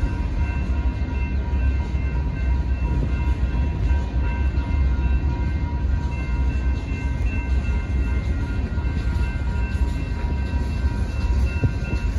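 Freight cars of a mixed freight train rolling through a grade crossing with a steady low rumble, while the crossing signal bells ring continuously.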